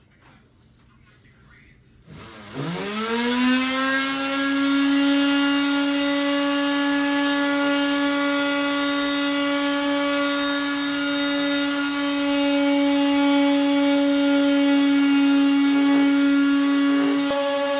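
A small electric power tool motor switched on about two and a half seconds in, quickly spinning up to one steady pitch and running evenly at full speed.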